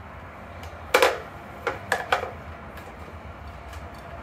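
A sharp knock about a second in, then three lighter clicks close together, as hard parts are handled and knock against the scooter's open deck.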